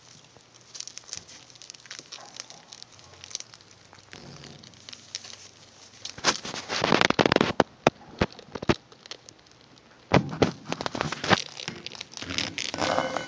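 Pet rats rummaging in wood-shaving bedding and gnawing food: a run of crackling rustles and clicks, with louder bursts about six seconds in and again about ten seconds in.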